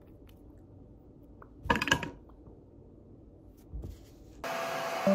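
A cluster of small knocks and clicks, loudest about two seconds in, from handling a small cosmetic bottle, with a lighter tap later, over quiet room tone. Near the end a hair dryer abruptly starts blowing steadily.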